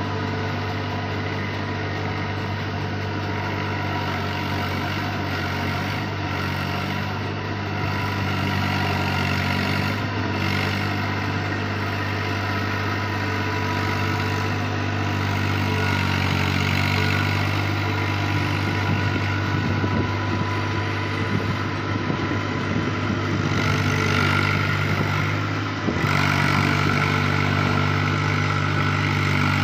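Eicher 480 tractor's diesel engine running steadily under load as it drives a rotary tiller through flooded paddy mud, a little louder near the end.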